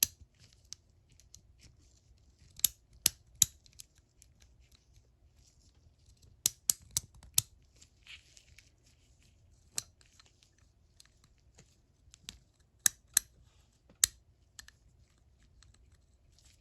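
Sharp metallic clicks and taps from handling the opened head of a vintage 3/8-inch drive ratchet and its pawl and gear. They come in irregular clusters of one to four, several seconds apart.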